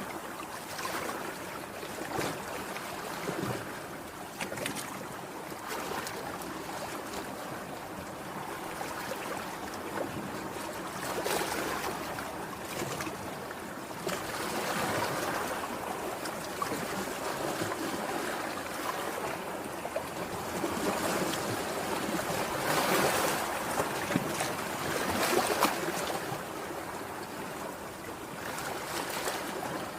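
Sea waves breaking and washing ashore, a steady rushing that swells and falls back, loudest about three-quarters of the way through.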